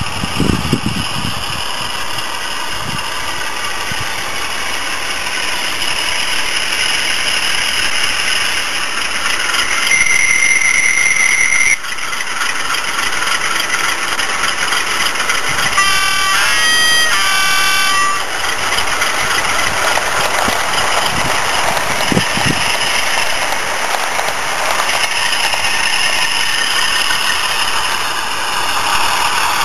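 Sound-fitted model Class 47 diesel locomotive, its DCC sound decoder playing the engine running through the model's small speaker. A long horn blast sounds about ten seconds in, and a quick run of short two-tone horn notes follows a few seconds later.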